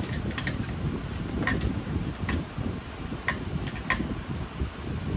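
About seven light, sharp clicks at irregular intervals over a steady low rumble.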